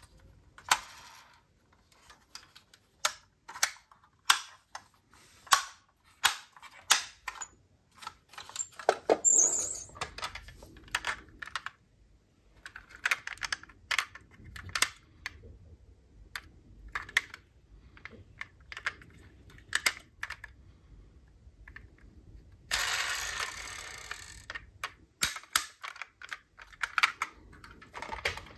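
Die-cast toy cars clicking and clinking as they are handled and set down, in irregular sharp taps. Near the end there is a scraping noise lasting about two seconds.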